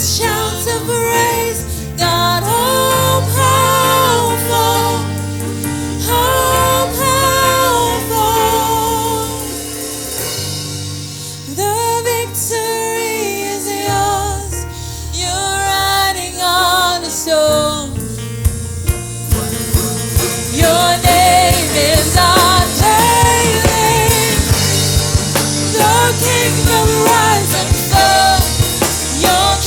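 Gospel worship music with sung vocals over a band; a steady drum-kit beat comes in about eighteen seconds in.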